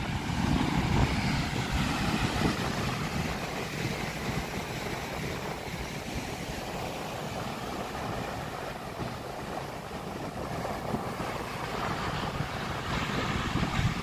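Heavy surf breaking on a sand beach with a steady rushing wash, louder about a second in and again near the end, with wind buffeting the microphone.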